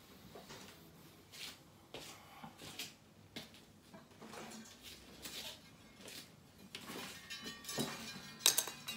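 Faint scattered knocks, clicks and rustling as a guitar is handled and taken from its case. Near the end there is a sharper knock, and an acoustic guitar's strings start to ring as it is brought into playing position.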